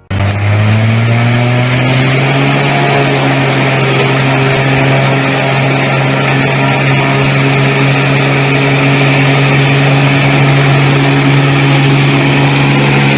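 Small propeller plane's engine running at full power for a takeoff run through mud. Its pitch rises a little over the first couple of seconds, then holds steady and loud.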